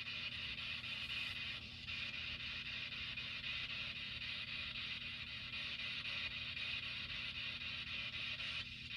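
A steady low hum with a constant hiss, unchanging throughout.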